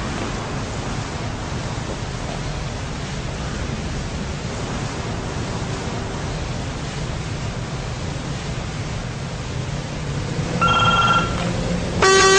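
Steady road and engine noise from driving down a city street, then two short horn honks near the end, about a second apart, the second lower and louder.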